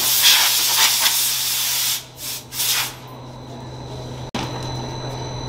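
Compressed-air spray gun in a powder-coating booth hissing in one steady blast for about two seconds, then two short bursts; after that a quieter steady hum.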